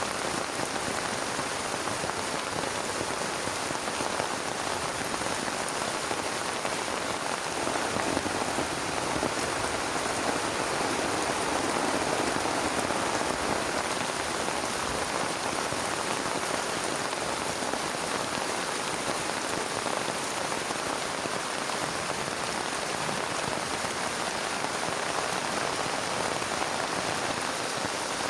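Heavy rain falling steadily, swelling a little louder for several seconds around the middle.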